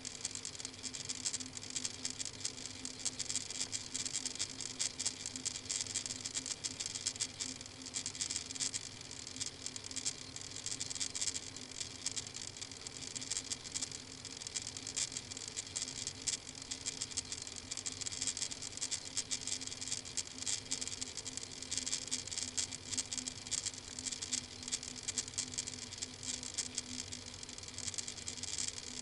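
Steady dense crackle and hiss with a faint low hum from a nest-box webcam's audio line, unchanging throughout.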